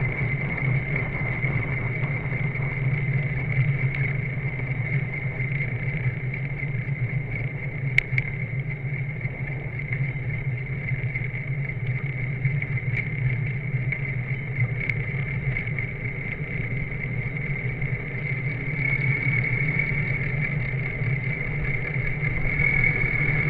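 Motorcycle engine running at a steady pitch while riding, with a steady high whine over it. A single sharp click about a third of the way through.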